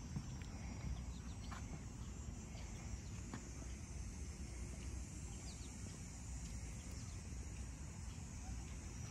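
Outdoor ambience: a steady low rumble with a constant high insect-like hiss, and a few faint short bird chirps about five to seven seconds in.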